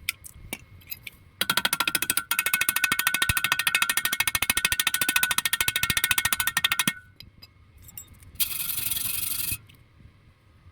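Welding arc crackling in a rapid, even stream for about five seconds, then a second, shorter burst about a second and a half later.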